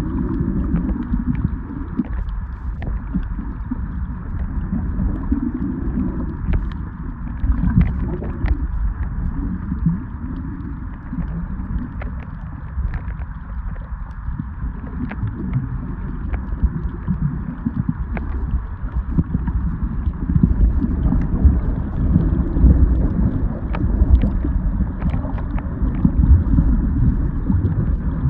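Muffled underwater sound picked up by a camera held below the surface: a steady low rumble and wash of moving water, with scattered faint sharp clicks.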